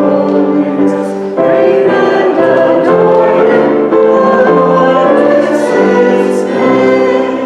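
A choir singing a hymn, sustained notes moving from chord to chord.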